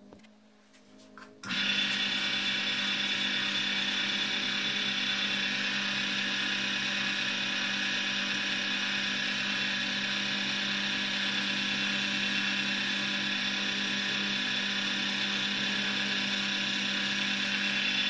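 Wood lathe motor running at a constant speed: a steady, unchanging machine whine that starts suddenly about a second and a half in and stops right at the end.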